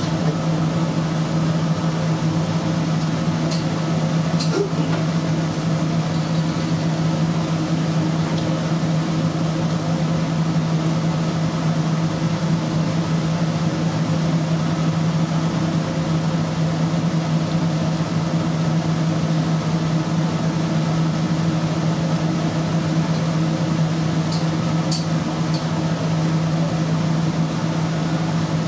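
Steady machine hum of kitchen ventilation, a low drone holding one pitch throughout. A few faint light clicks come around four to five seconds in and again near the end.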